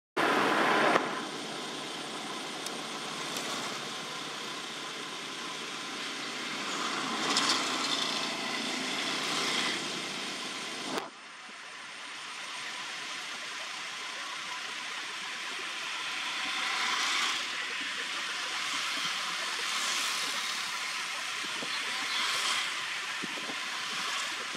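Outdoor background noise: a steady hiss that swells and fades every few seconds, dropping abruptly about eleven seconds in.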